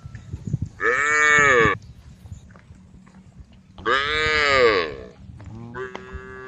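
Cows mooing: three long calls, each rising then falling in pitch, about a second apart, the third starting near the end.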